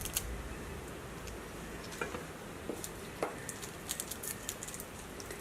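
Faint, scattered small clicks and soft squishes of fried garlic cloves being peeled by hand, with a cluster of quick ticks near the end.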